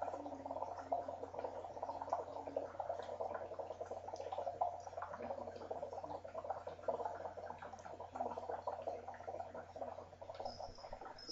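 Water bubbling continuously in a homemade percolator bong made from plastic bottles, as smoke is drawn through the water, a dense stream of tiny pops that dies away near the end. A thin high tone begins just before the end.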